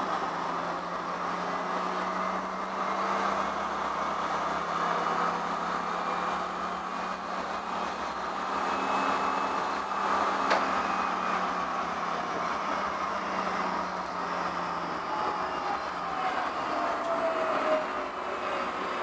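Series 7000 tram running on its rails, heard from inside the rear cab: a steady rolling rumble with a low motor hum. There is a sharp click about ten seconds in, and near the end a falling whine as the tram slows.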